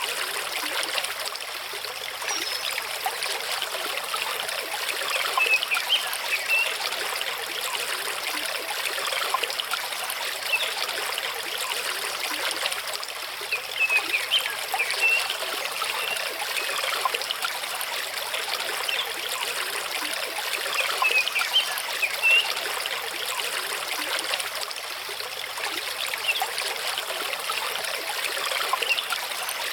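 Mountain stream running over rocks: a steady wash of water with constant small splashes.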